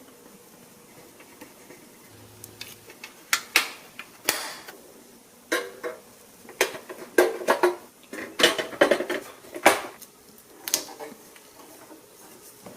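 Small hard parts, metal or plastic, clinking and clattering as they are handled, in irregular taps and knocks, some with a brief ring, bunched in the middle of the stretch.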